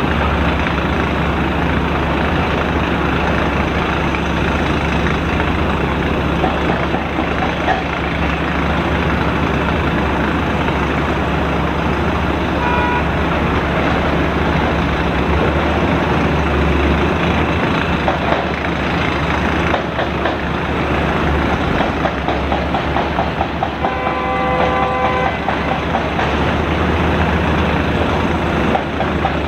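Heavy diesel engines of a Cat 972H wheel loader and a HOWO 8x4 dump truck working as crushed granite is loaded, a steady deep rumble. A short pitched toot sounds once briefly midway and again, longer, near the end.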